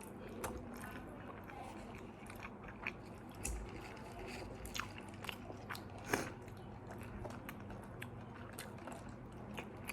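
Quiet chewing and biting of McDonald's fast food, with scattered short crunches and mouth clicks.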